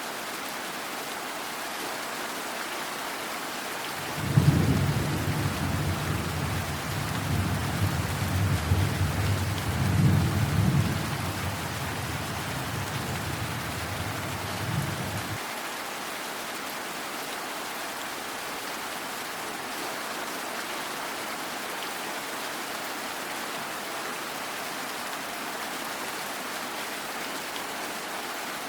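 Steady rain falling, with a clap of thunder about four seconds in. It rolls on as a low rumble that swells twice more, then stops abruptly after about ten seconds.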